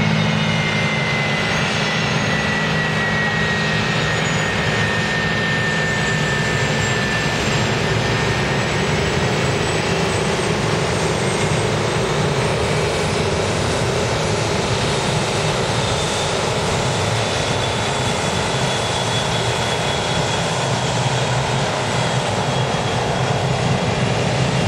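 Allegiant Air McDonnell Douglas MD-83's rear-mounted Pratt & Whitney JT8D turbofans running as the jet taxis past: a steady jet roar with a high whine that slides down in pitch over the first several seconds.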